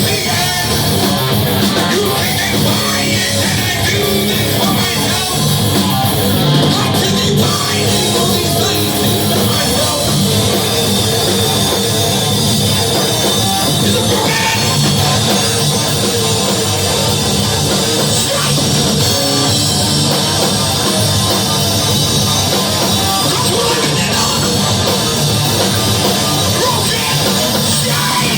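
A live heavy rock band playing loud and steady, with distorted guitars, drums and shouted vocals.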